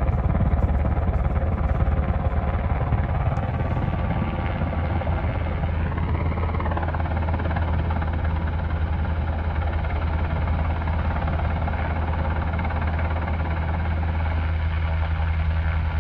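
Helicopter flying low overhead, heard from inside a tent: a loud, steady, low rotor drone, with a whine that rises and falls once about six seconds in.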